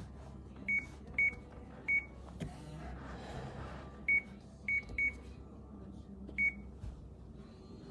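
Short, high electronic beeps, seven of them at irregular intervals, over a low steady hum.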